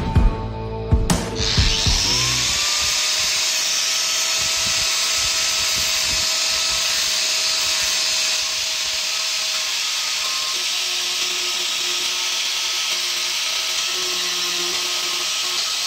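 Heavy rock music for about the first two seconds, then an angle grinder spins up with a rising whine and grinds steadily along a rusty steel door sill, taking it back through rust and paint.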